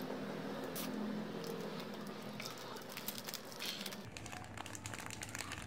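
Plastic candy wrappers crinkling and crackling in irregular small clicks as they are handled and opened, busier in the second half.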